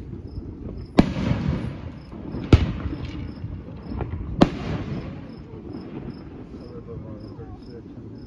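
Aerial firework shells bursting in the sky: three loud, sharp bangs about one and a half to two seconds apart, with fainter pops between them, each trailing off in a long echo.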